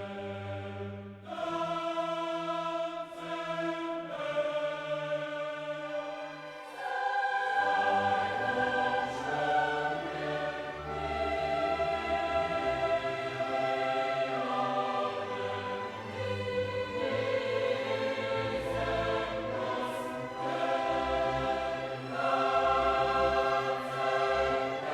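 Background music with a choir singing held chords; a deep bass comes in about seven seconds in.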